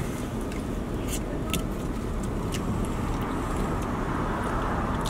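Steady road and tyre noise heard inside a car's cabin as it drives, with a few faint clicks.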